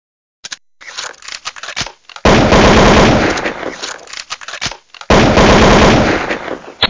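Sound effect of automatic gunfire: a few scattered shots, then two long bursts of rapid fire of about two seconds each, with a short gap between them.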